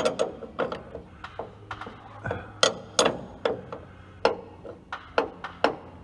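Irregular metallic clicks and clinks of a box-end wrench working the nut on a roller-chain tightener sprocket, while a loose, worn drive chain is taken up.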